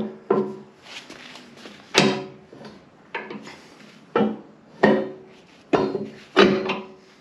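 Heavy steel parts clanking against each other: lift adapter tubes being set and shifted in the lift arms' holders. There are about eight knocks at irregular intervals, each ringing briefly.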